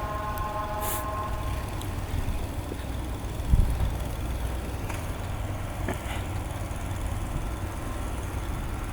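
Steady low rumble of a motor vehicle running close by in a snowy street. A steady pitched tone fades out within the first second, and a single thump comes about three and a half seconds in.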